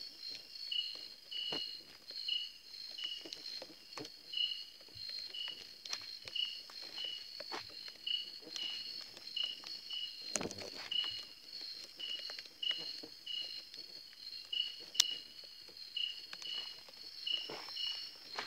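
Night insect chorus: a steady high-pitched buzz with a short chirp repeating about twice a second. Under it, scattered footsteps and rustles on the ground close by, with a low thud about ten seconds in and a sharp click about fifteen seconds in.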